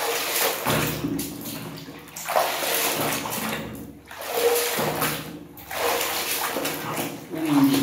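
Soapy water sloshing and splashing in a tub as a plastic toy truck is scrubbed and plunged by hand, in surges about every two seconds.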